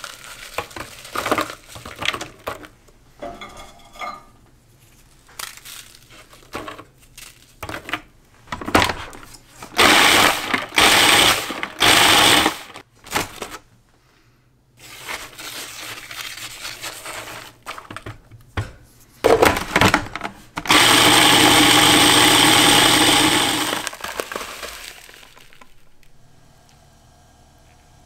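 Food processor grinding Oreo cookies into crumbs. It is pulsed in several short bursts about ten seconds in, then run steadily for about three seconds before spinning down. Before the bursts there are light clicks and knocks of cookies dropping into the plastic bowl.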